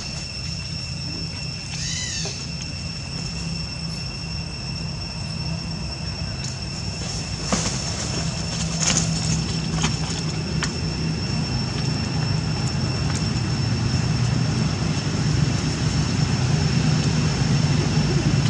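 A low, steady engine rumble that grows louder over the second half, under a constant high-pitched whine, with a short run of chirps about two seconds in and a few sharp clicks around the middle.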